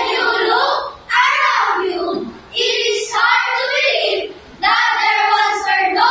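A group of children singing together in unison, in short phrases with brief pauses between them.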